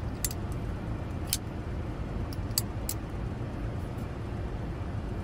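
Civivi Conspirator folding knife being fidgeted, its blade and lock giving several sharp clicks over the first three seconds. A steady low rumble of the car runs underneath.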